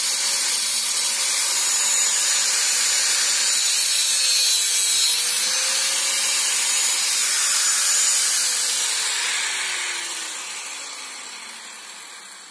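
Electric angle grinder with its disc against a small metal pipe fitting, running steadily with a loud grinding rasp. About eight seconds in it is switched off, and the motor whine falls in pitch and fades as the disc spins down.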